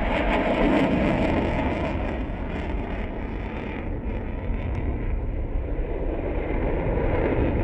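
Jet noise from a Boeing F/A-18 Super Hornet's twin turbofan engines as it flies its display overhead: a continuous rushing roar that is loudest at first, eases a little in the middle and builds again near the end.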